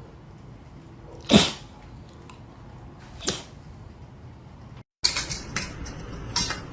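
A pet animal making two short, sharp sounds about two seconds apart, the first much louder than the second. After a brief break in the sound, a run of light clicks and taps follows.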